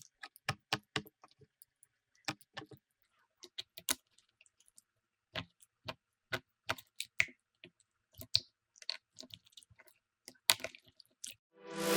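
Slime being squished and pressed: a scattered run of sharp clicks and small pops from trapped air, some in quick clusters, with brief pauses between.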